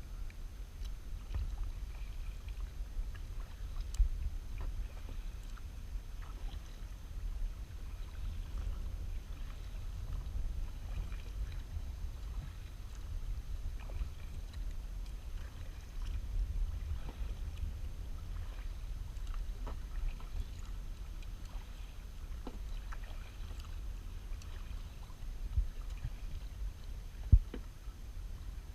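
Out on the water in a kayak: a steady low rumble with light scattered splashing ticks and a few sharp knocks, the loudest a little before the end.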